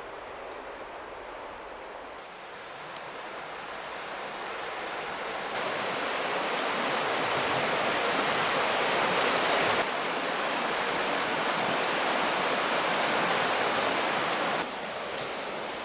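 River water rushing, a steady hiss-like flow that grows louder over the first few seconds, with sudden shifts in loudness about six, ten and fifteen seconds in.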